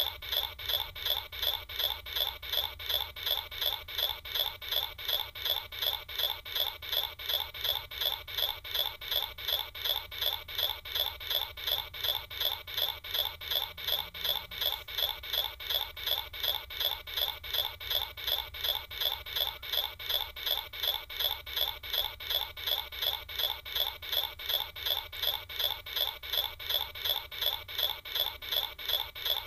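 A high-pitched scratchy sound repeating evenly about three times a second, unchanging, like a looped sound effect.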